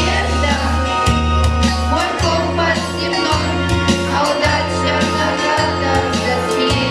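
A song: singing over an instrumental backing with sustained bass notes and a regular beat.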